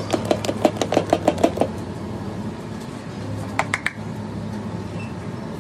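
A hand beating dosa batter in a stainless steel bowl: a quick run of wet slaps, about six a second, for the first second and a half. Near the end, three short clinks of a small steel bowl against the griddle as batter is poured, all over a steady low hum.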